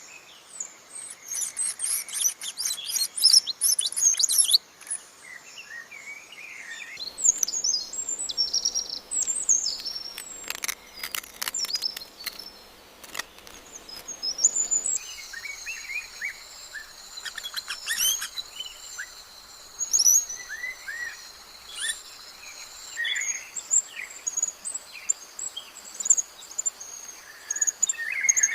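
Wild birds chirping and calling in short, high notes, with a quick run of very high notes near the start and a few sharp clicks in the middle. A steady high hum sits behind the calls in the second half.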